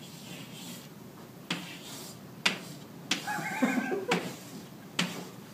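Chalk tapping sharply on a blackboard a few times as letters are written, with light scraping between the taps. Near the middle comes a brief wavering voice-like sound, about a second long.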